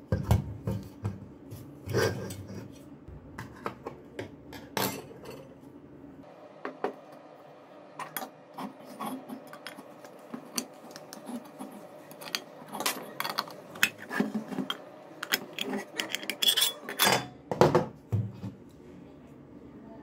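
Irregular metal clinks, taps and scrapes as a microwave oven magnetron's sheet-steel casing is handled and side-cutter pliers pry the cover off its filter box. Louder knocks come near the start and again a few seconds before the end.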